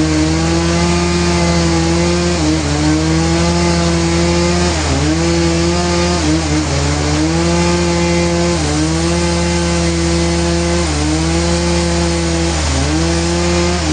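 A sawmill's engine-driven saw running under load, its pitch sagging briefly and recovering every couple of seconds as the cut bears on the blade.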